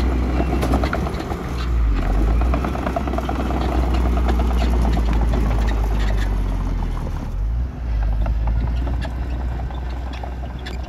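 Diesel engine of heavy earthmoving machinery running steadily with a deep rumble and rattling over it; the rumble dips briefly about three-quarters of the way through.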